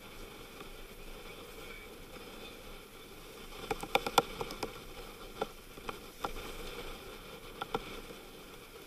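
Steady rush of wind and breaking waves around a sailing yacht heeled over in rough sea. A quick cluster of sharp clicks and knocks comes about four seconds in, and a few single ones follow later.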